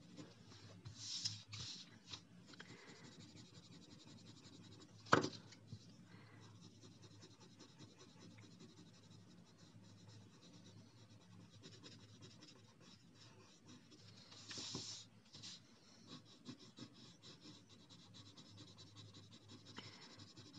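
Coloured pencils shading on paper: a faint, continuous scratching of pencil strokes, with a couple of short louder scratches about a second in and about two-thirds of the way through. A single sharp tap about five seconds in.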